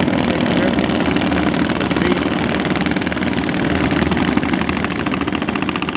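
Small boat engine running steadily with a fast, even putter.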